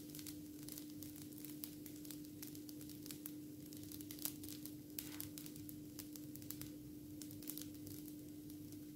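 Pancake batter cooking in a hot multi-cup nonstick pan: faint, irregular crackling and ticking as the batter bubbles and sets, over a steady hum.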